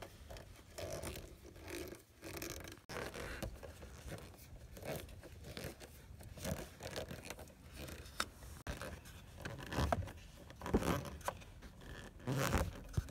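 Hand screwdriver backing out screws from the metal bracket of a Honda Civic's cassette player console: irregular scraping from the turning driver with a few sharp clicks, louder from about ten seconds in.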